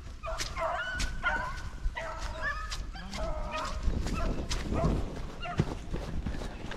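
Beagles baying on a rabbit's scent trail: repeated short, bending calls from several dogs, overlapping at different pitches, with scattered sharp clicks.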